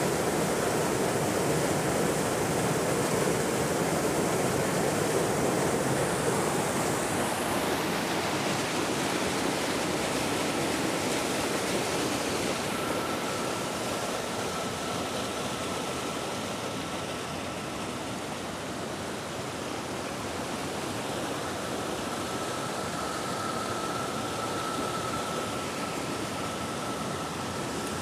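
Small waterfall rushing down between rock ledges, a steady roar of falling water that grows slightly softer partway through.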